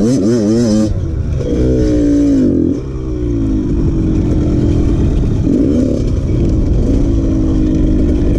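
Fuel-injected two-stroke dirt bike engine being ridden: its pitch wavers with quick throttle changes for the first second, drops away around two seconds in, then holds steady apart from a short rev about five and a half seconds in.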